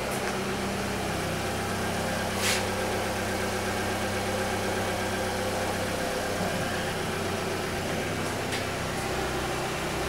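Dodge Dart idling steadily, with a steady hum and buzz from the car; the owner puts the buzzing down to the HID headlights running without their DRL cancellers. A faint tick about two and a half seconds in.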